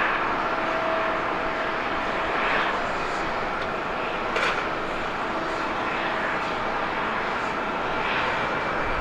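Boeing 767-300ER's twin General Electric CF6 jet engines running at takeoff thrust during the takeoff roll: a steady rushing noise with faint steady whining tones through it. A short sharp click about four and a half seconds in.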